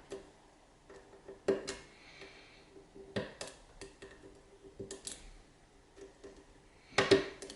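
Sharp metallic clicks and ticks of a pick and tension wrench working the pins of a 7-pin tubular cam lock. They come singly and in pairs a second or two apart, with a louder cluster near the end.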